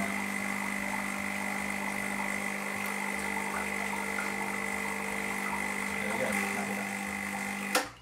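Gaggia Classic espresso machine's vibratory pump running steadily with a buzzing hum as it pushes fresh water through to rinse out the descaler, then switched off with a click just before the end.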